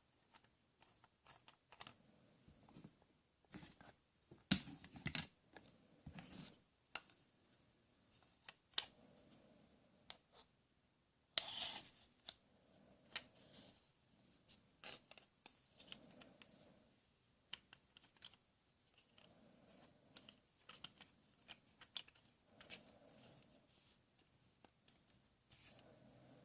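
Plastic toy tools being handled: scattered light clicks, taps and short scraping rasps, the loudest scrapes about four and a half and eleven and a half seconds in.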